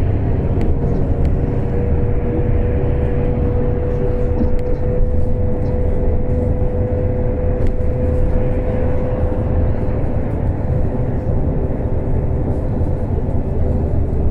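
Inside a moving trolleybus: the electric traction motor whines on one steady pitch over a low rumble from the road and running gear.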